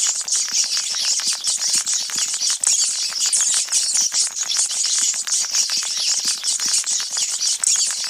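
Many rats squeaking and chittering together, a dense, unbroken clamour of high squeaks laced with rapid clicks.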